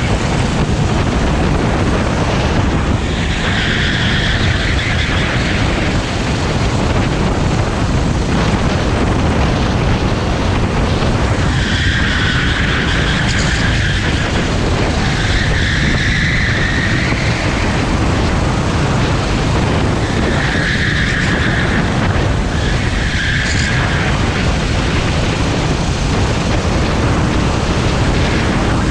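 Rental kart's Honda GX390 single-cylinder engine running flat out under heavy wind buffeting on the onboard microphone. A high-pitched tone comes and goes every few seconds, about six times.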